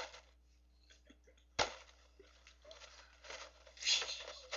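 Cardboard cereal box being handled and jostled: a sharp knock about a second and a half in, then rustling and crinkling.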